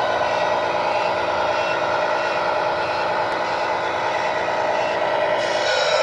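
Sound unit of a 1:14-scale RC truck playing a steady diesel truck engine running note through its small speaker. A hiss joins near the end.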